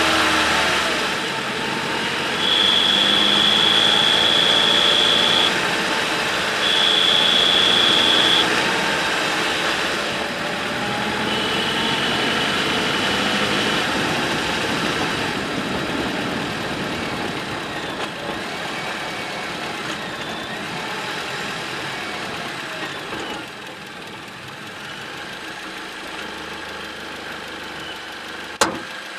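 2008 Toyota Corolla engine running with a high-pitched whistle from under the bonnet that comes and goes: three spells of a steady high tone in the first half, the last one fainter. A single sharp click near the end.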